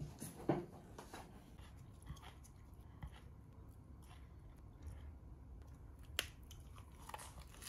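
Quiet handling sounds of a lettuce wrap being made at a table: leaves rustling and a few light clicks, with a sharper knock about half a second in.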